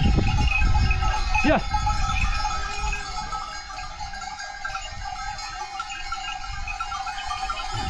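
A flock of goats and sheep on the move, with scattered bleats, the clearest about a second and a half in, over a steady jingle of livestock bells. A louder low rumble fills the first two seconds and then fades.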